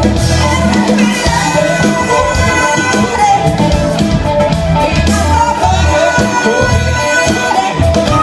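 A live band playing a Latin-flavoured pop song, with bass, guitar, drums and a singing voice.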